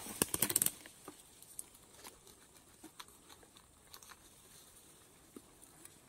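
Rustling and crackling of dry grass and leaf litter as mushrooms are cut at the base by hand with a small knife. It is loudest in the first second, then thins to faint scattered clicks and snaps.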